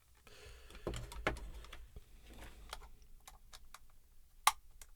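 Irregular small clicks and taps of a screwdriver, bits and plastic headphone parts being handled, with one sharper click about four and a half seconds in.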